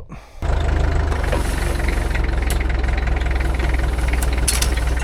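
A heavy engine, most likely a farm tractor's, idling steadily with a deep, even rumble; it comes in abruptly about half a second in.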